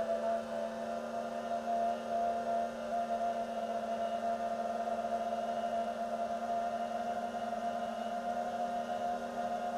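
FPV drone's electric motors and propellers whining steadily at a nearly constant pitch as it flies.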